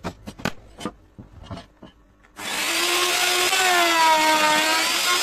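A few light knocks and taps, then about two and a half seconds in an electric power tool starts working wood loudly, its motor pitch sagging and recovering under load.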